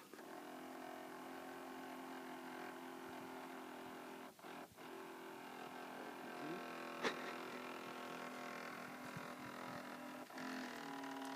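Small electric motor of a toy remote-control boat whining steadily as it runs, cutting out briefly a few times as the throttle is let off, with one sharp click about seven seconds in.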